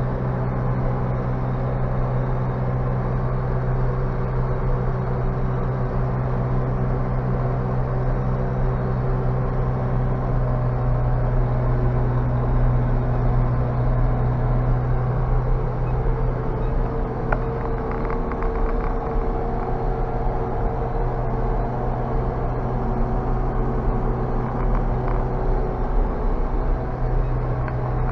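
JCB 3CX backhoe loader's diesel engine running steadily under way, heard from inside the cab as a constant low drone. A higher tone joins in for a few seconds a little past the middle.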